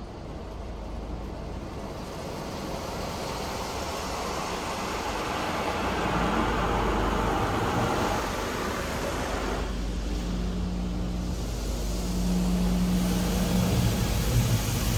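PDQ Tandem Surfline automatic car wash running: a loud rushing hiss that builds up and stops sharply about ten seconds in, then a steady low machine hum.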